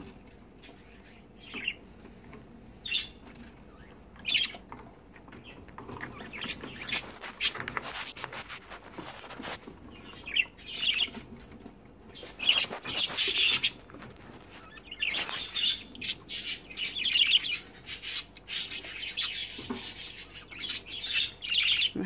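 Budgerigars chirping: a few short calls at first, turning into busy chatter about halfway through. Sharp clicks and rattles of the wire cage run through it as food is put in.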